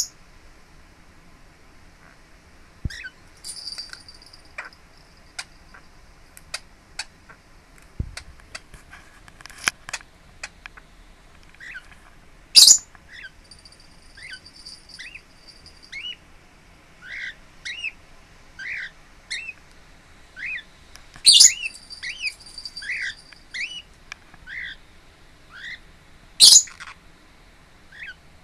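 Lineolated parakeet calling: many short soft chirps that rise and fall, about one or two a second in the second half, with three much louder sharp calls and a few thin high drawn-out notes. Scattered small clicks in the first third.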